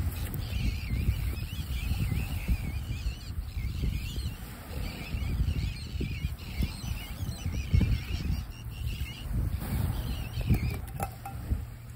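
A bird singing a long, continuous warbling song whose pitch wavers rapidly, stopping near the end, over the steady rumble of wind buffeting the microphone.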